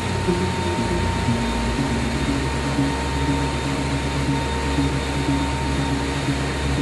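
Steady rushing air noise of a car-body paint booth, its ventilation and spray robots running, with low notes of background music moving underneath.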